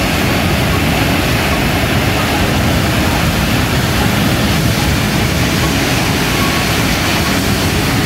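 Sunwapta Falls, a large waterfall of turbulent whitewater, rushing with a steady, loud, unbroken noise.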